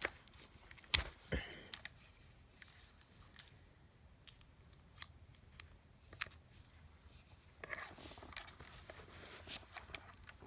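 Handling noises of small hand-held parts: a sharp click about a second in, then scattered light clicks and brief rustles.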